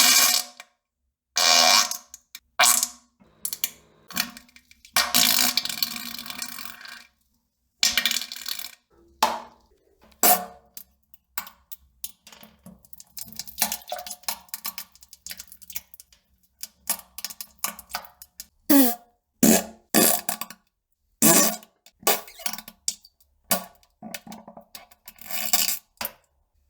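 A rapid series of short fart and poop sounds, one after another with silent gaps between them. Some have a low buzzing tone and others are noisier.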